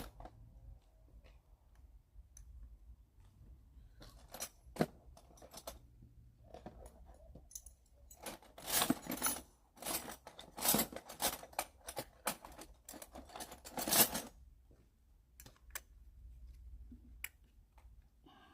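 Hand tools clicking, clinking and scraping on the metal parts of an old lawnmower carburetor as it is worked loose and taken apart, with bursts of rapid clatter in the middle of the stretch.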